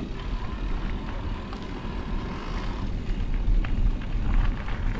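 Wind rumbling on the microphone and bicycle tyres rolling over a gravel track while riding, with a faint steady whine through the first half that fades out.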